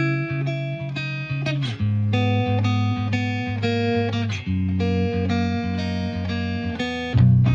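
Background music led by guitar with a bass line, plucked notes changing in a steady rhythm; the bass gets louder near the end.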